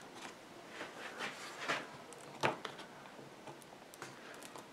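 Hands handling a laptop battery inside an open MacBook Air: faint rustling and a few light taps, with one sharper click about two and a half seconds in.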